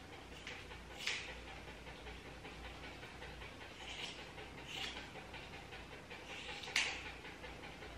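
A Maltese dog panting steadily while grooming scissors snip the hair around its ears: about four short, sharp snips, the loudest near the end.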